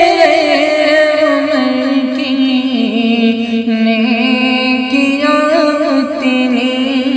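Male voice singing an Urdu naat, drawing out a long ornamented melismatic phrase whose pitch slowly falls.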